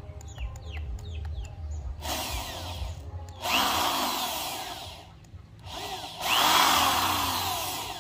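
Corded electric drill with a large bit grinding against the glazed base of a ceramic pot, run in bursts: a quieter one about two seconds in, then two louder runs. The ceramic is too hard for the bit to bite, and it only scratches the glaze.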